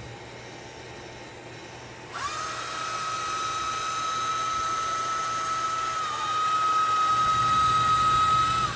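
Electric motor of a Link motorized transfer seat running with a steady high whine, starting about two seconds in and dipping briefly near six seconds as the seat powers through its motion.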